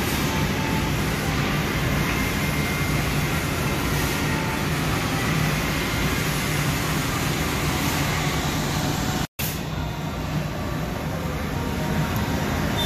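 Steady drone of running machinery with a low hum. It drops out for an instant about nine seconds in, then carries on.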